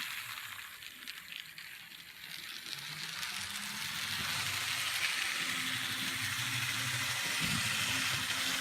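N-gauge 2-8-8-2 Mallet model locomotive running on its track: a small electric motor hum under a steady hiss of wheels on rail. It grows louder about two seconds in, then runs steadily.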